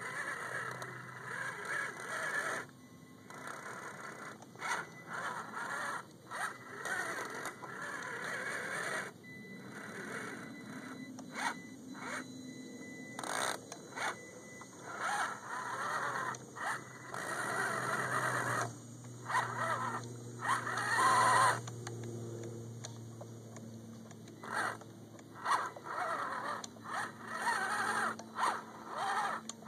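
Axial SCX10 radio-controlled crawler's electric motor and drivetrain whining in repeated short bursts as the throttle is worked on and off while the truck bogs through wet mud. The rear axle is slipping.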